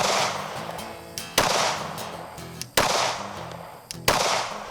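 Four gunshots at an even pace, about a second and a half apart, each with a short echo trailing off.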